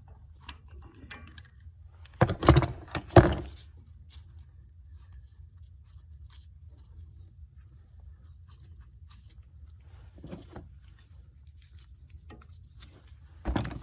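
Metal tools and brake parts being handled while the caliper piston is pushed back: a short burst of loud clattering about two seconds in, a smaller clatter near ten seconds, and scattered faint clicks in between.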